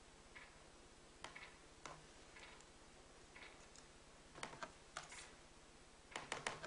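Near silence: room hiss with faint, irregular small clicks and ticks, a few bunched together about four and a half seconds in and again near the end.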